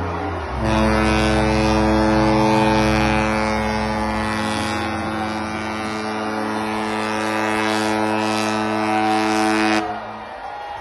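Ship's horn sounding one long, steady blast of about nine seconds, cutting off sharply near the end, as a New Year's salute.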